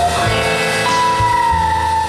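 Instrumental background music: long held lead notes that slide slightly down in pitch, over a pulsing bass line.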